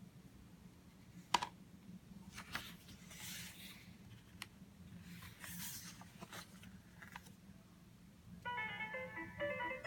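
Quiet handling sounds, a sharp click a little over a second in and two brief rustles, then, near the end, a children's sound book's button speaker starts playing a tinny electronic melody.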